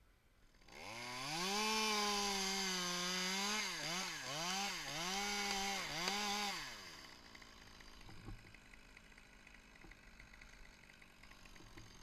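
Chainsaw revving up to full speed in a high, steady whine, its pitch sagging and recovering several times as it cuts into a pine trunk, then dropping away about seven seconds in.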